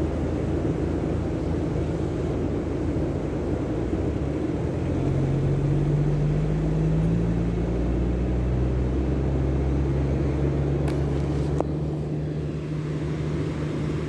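A steady low engine drone over the continuous wash of surf, the drone's pitch shifting about five seconds in.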